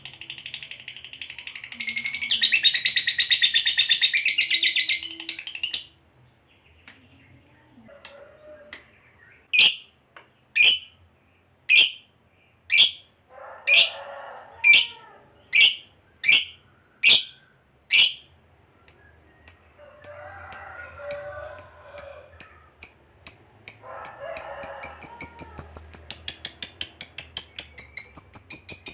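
Fischer's lovebird calling: about four seconds of rapid, shrill chatter (the long trill fanciers call ngekek), then single sharp high chirps about one a second, which speed up near the end into a fast run of chirps.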